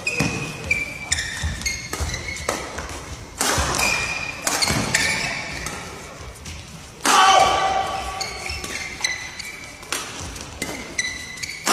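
Badminton doubles rally: quick, sharp racket hits on the shuttlecock, with short high squeaks of court shoes on the floor between them. About seven seconds in, a single loud shout.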